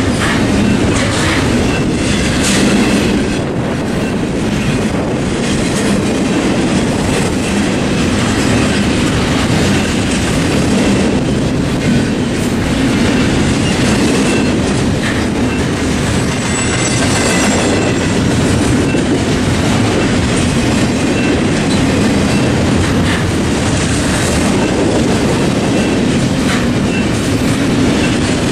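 Double-stack intermodal freight train cars rolling past: a steady rumble of steel wheels on rail with intermittent clicks.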